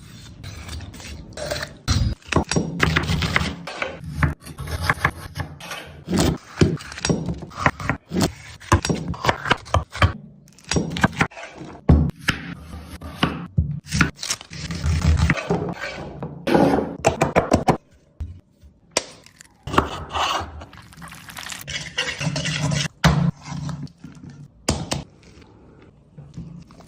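Kitchen preparation sounds: a busy run of knocks, thuds and scrapes, with a brief lull about two-thirds of the way through.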